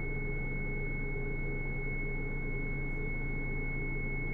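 Steady cockpit drone of the DA50 RG's jet-fuel piston engine throttled back, heard through the intercom, with a constant thin high-pitched tone over it.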